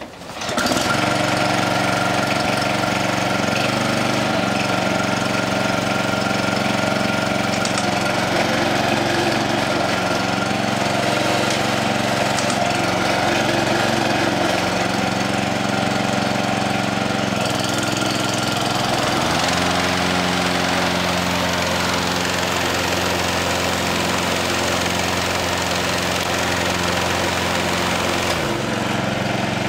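A small engine comes in suddenly and runs steadily. Its speed changes about two-thirds of the way through and returns near the end.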